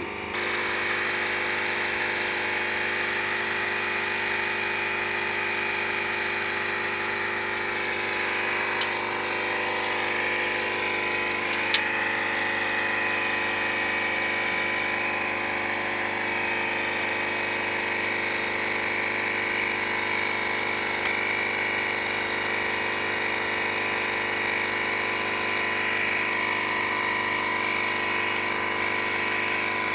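A motor running steadily, with a constant hum and whine, and two short sharp clicks, about nine and twelve seconds in.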